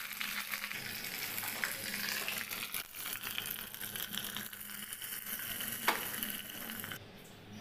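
Green leaves frying in hot oil, a steady crackling sizzle with one sharper click about six seconds in; the sizzle dies down near the end.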